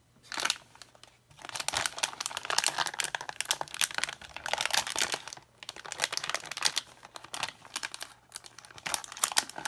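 Plastic packaging bag crinkling and rustling as hands handle it and pull it open. A short crackle comes just after the start, then quick, irregular crinkles run on nearly without a break from about a second and a half in.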